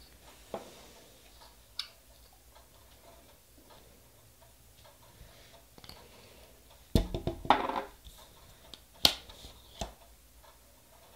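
Small nail-stamping tools being handled: a few faint isolated clicks, then a short burst of rapid clicks and scraping about seven seconds in, followed by two sharp clicks.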